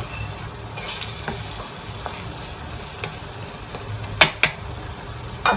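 Chicken in onion paste sizzling in a steel kadhai as a spatula stirs and scrapes through it; the paste is frying in oil that has separated out, the sign the masala is fully fried. About four seconds in, two sharp knocks, likely the spatula striking the pan.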